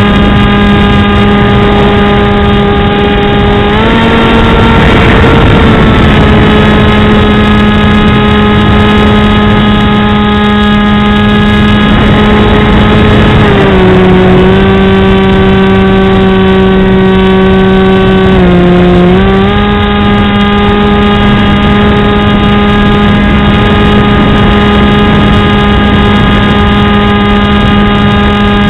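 Multiplex Easystar's electric pusher motor and propeller running in flight, a loud steady drone picked up by the camera on the wing. The pitch steps up about four seconds in, then drops about halfway through and dips once more briefly before settling back, as the throttle changes.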